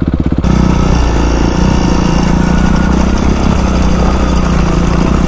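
Dirt bike engine pulsing evenly at low speed. About half a second in it changes suddenly to a louder, steady engine drone mixed with wind rush on the microphone as the bike rides at speed.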